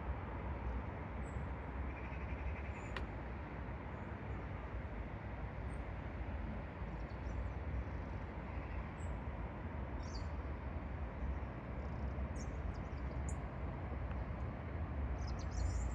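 Steady outdoor rushing noise with a deep rumble, and faint, short, high bird chirps here and there that come thicker near the end.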